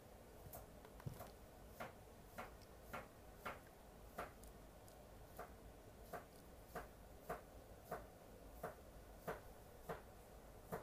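A Shiba Inu puppy nibbling at a cloth drawstring cord, its teeth making soft, slightly uneven clicks about every two-thirds of a second.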